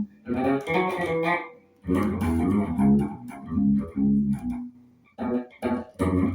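Strinberg SAB 500 electric bass played through a small, well-worn amplifier and picked up by a phone: plucked notes in short phrases, with brief pauses about two seconds in and about five seconds in.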